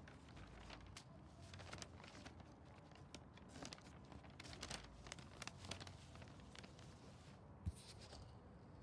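Faint crinkling and rustling of a sheet of paper being handled, in short scattered bursts, with one sharp click near the end, over a near-silent room.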